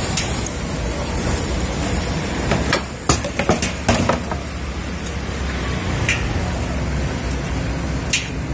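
Steady low rumble behind a cluster of sharp knocks and taps a few seconds in, as a folded crispy peanut pancake is handled on a wooden cutting board. Near the end a single sharp stroke comes as a kitchen knife cuts down through the pancake onto the board.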